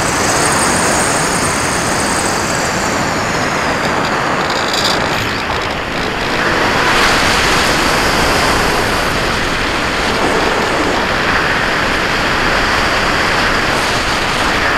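Steady rush of airflow over the onboard camera of a Cularis RC electric motor glider in flight. The high whine of its electric motor falls in pitch and fades out about four seconds in.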